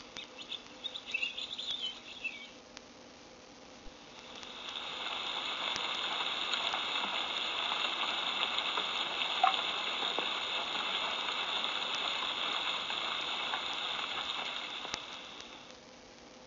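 A few faint bird chirps, then a rain sound effect that fades in about four seconds in, runs as a steady hiss of falling rain, and fades away near the end.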